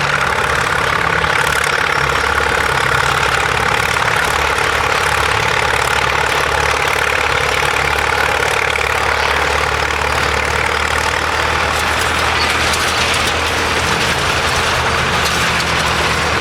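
Heavy engine running steadily at an even speed, with a constant low hum under a broad, even noise.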